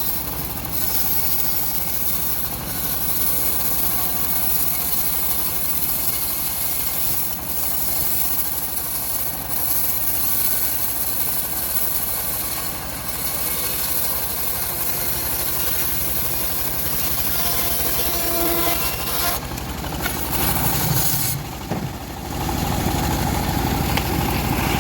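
Engine-driven homemade bandsaw mill running steadily while its blade rips through hard teak wood. Its sound shifts briefly near the end, then runs on with a heavier low rumble.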